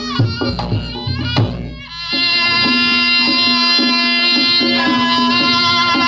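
Reog Ponorogo music: drum strokes with short pitched percussion notes, then, from about two seconds in, a reed trumpet (slompret) holding one long note over the beat.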